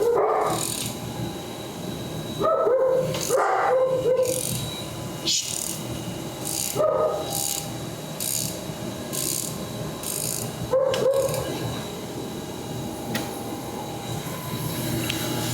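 A dog whining and yipping in short, high calls, several times over. Faint clicking repeats about once a second in the middle.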